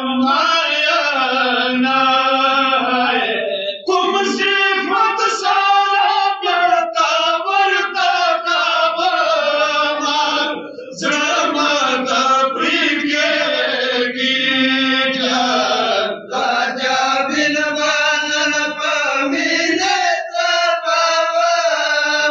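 A Pashto noha, a Shia mourning lament, chanted by men's voices, line by line with short pauses between phrases.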